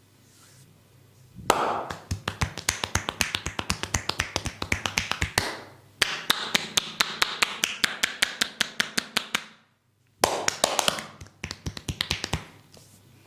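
Barber's hands striking the body in rapid percussive massage strokes (tapotement), a fast run of sharp claps at about six a second, in three bursts.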